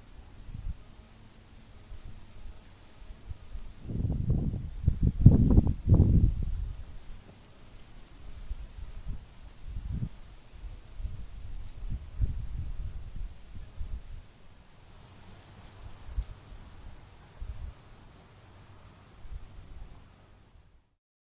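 Insects chirring outdoors: a steady high buzz with a pulsing chirp over it. Low rumbles on the microphone are loudest about four to six seconds in. The sound cuts off near the end.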